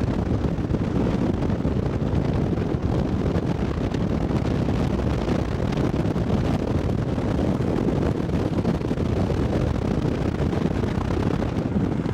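Steady rumble of a car driving along the road, with wind buffeting the microphone.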